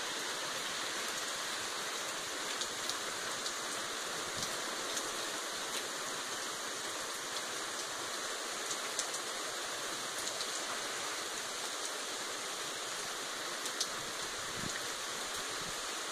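Heavy rain pouring down in a steady dense hiss, with scattered sharp drop ticks close by.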